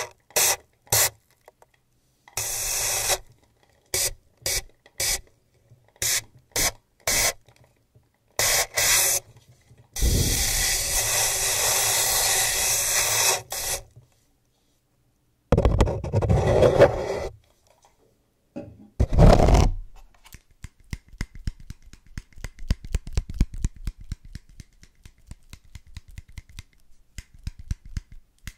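Spray bottle misting water onto a model skull sitting on the microphone: about a dozen short sprays, then one long spray of a few seconds. Two fuller handling rustles follow, then small scissors snipping near the microphone as many quick, light clicks.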